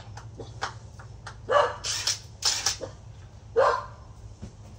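Dog barking about four times within two seconds, over a steady low hum.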